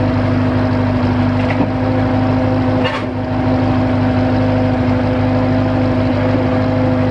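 Limited-access drill rig's engine running steadily close up, a constant hum with a brief dip in level about three seconds in.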